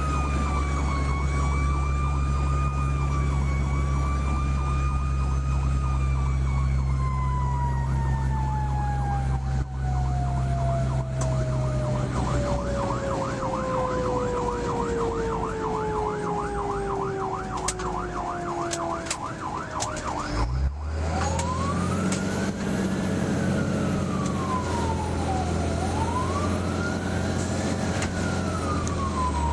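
Fire engine under way with sirens over the steady drone of its engine: a siren holds a high, wavering tone and then winds down in a long falling pitch, overlapped by a rapid warbling yelp. About twenty seconds in there is a brief break, and a siren then cycles in a slow rising and falling wail.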